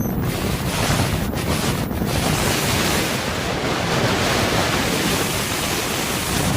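Strong storm wind buffeting the microphone, a loud steady rush that sets in suddenly and holds throughout.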